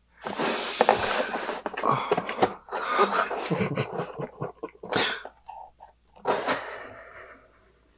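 A man's breathy, whispered vocalising with loud hissing exhalations, about a second in and again near five and six and a half seconds.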